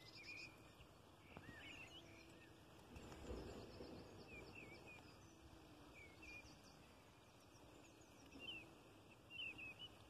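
Faint outdoor background with small birds chirping off and on: short, quick chirps repeating through, over a low steady noise floor, with a brief soft low rustle about three seconds in.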